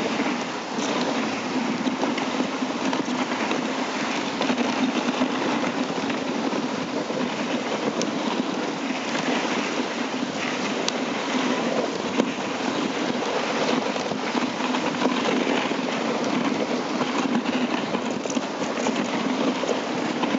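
Dog sled runners sliding over packed snow behind a running husky team, a steady rushing, scraping noise with a few faint clicks.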